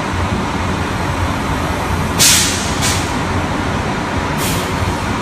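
Coach bus engine idling with a steady low rumble, broken by three short hisses of released air: two close together about two seconds in, the first the loudest, and one more near the end.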